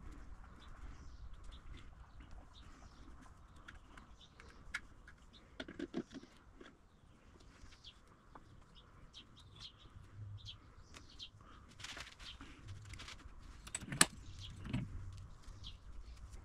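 Faint handling noises as red grease is worked onto the lathe's tensioner pulley and shaft with a wooden stick: a few soft taps about six seconds in and one sharp click about fourteen seconds in. Scattered faint bird chirps are heard in the background.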